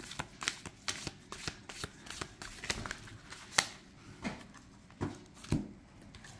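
A thick deck of 110 glossy cards being shuffled by hand: a quick run of soft card flicks and slaps, the sharpest slap a little past halfway.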